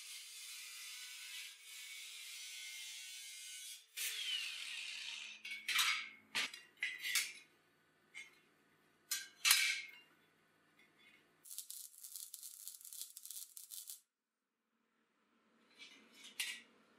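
Angle grinder cutting a thin steel plate, a steady high hiss that stops about four seconds in as the disc winds down with a falling whine. Then steel pieces clink and scrape as they are handled and set in place, followed by a few seconds of rapid crackling from a tack weld.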